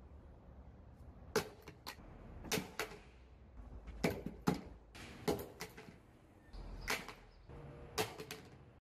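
A Vesper Cortex marine handset on its cable dropped again and again onto a wooden surface in a drop test: about seven sharp knocks and clatters, several followed by a quick bounce.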